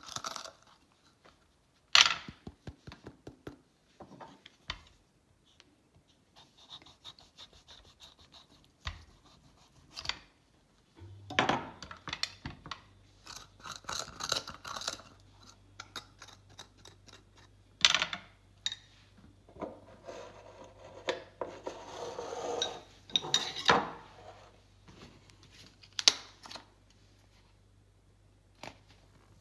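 Kitchen utensils scraping, rubbing and clinking against dishes in irregular bursts, with sharp knocks here and there. A low steady hum comes in about a third of the way through.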